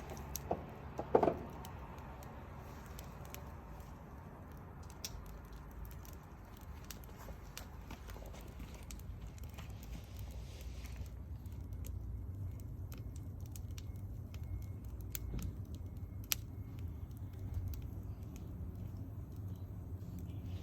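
Wood fire crackling, with scattered sharp pops and snaps over a steady low rumble; a louder clatter about a second in.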